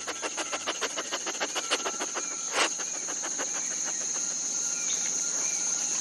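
Night insects trilling steadily, with a rapid run of soft clicks over the first few seconds and one sharper click about two and a half seconds in.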